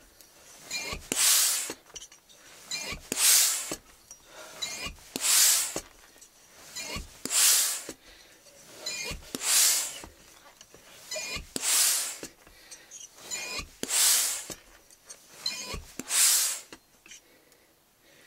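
FX three-stage hand pump worked at a steady pace, about one stroke every two seconds: each stroke a knock followed by a loud hiss of air. It is filling a PCP air rifle's cylinder near full pressure, close to 120 bar.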